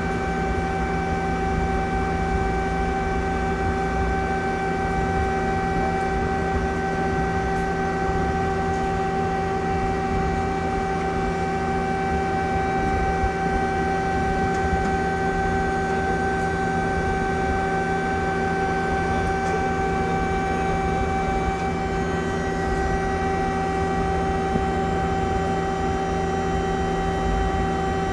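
Steady hum of a powered-up Mazak Quick Turn Nexus 250-II CNC lathe, several fixed tones held over a low rumble.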